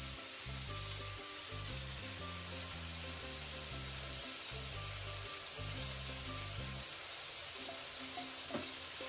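Boneless chicken frying in oil in a wok over a gas flame, sizzling steadily. Background music with a stepping bass line runs under it and stops about seven seconds in. One light tap comes near the end.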